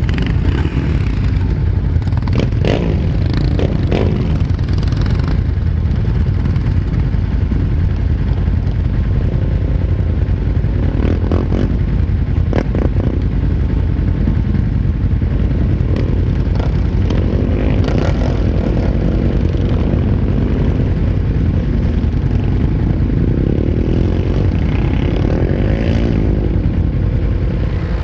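Sport quad bike (ATV) engines running close by, a steady loud idle with throttle blips and revs several times over.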